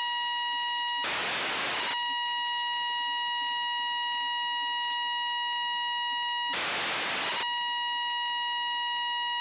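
FM-demodulated downlink audio from the AO-92 (Fox-1D) amateur satellite: a steady high tone with overtones over a faint low hum. Twice, about a second in and again near seven seconds, the tone gives way to less than a second of hiss as the signal briefly drops out.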